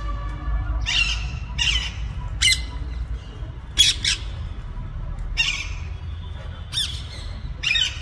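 Alexandrine parakeets giving a series of short, harsh squawks, one every second or so, some in quick pairs.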